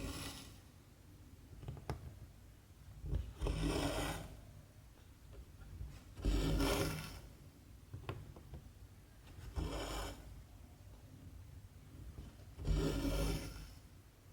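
Cotton embroidery thread being pulled through cross-stitch fabric, a short rasp about every three seconds.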